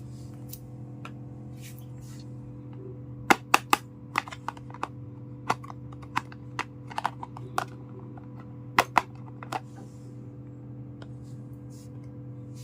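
A run of sharp, irregular clicks and taps of small hard toy kitchen pieces being handled and set down, some in quick pairs, mostly in the middle of the stretch. A steady low hum runs underneath.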